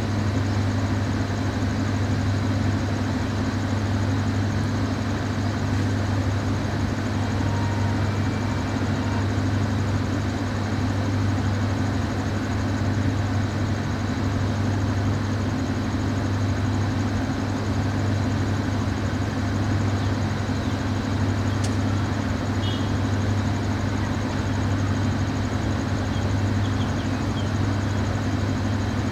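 Diesel train engine idling, a steady low hum that does not change.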